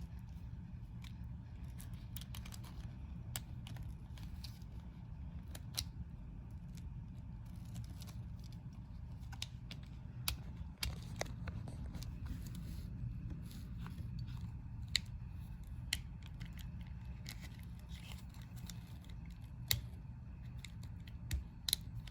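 Scattered small sharp clicks and taps of metal lock parts as a GM door lock cylinder, with its spring-loaded wafers, is handled and fitted into its new barrel, over a steady low hum.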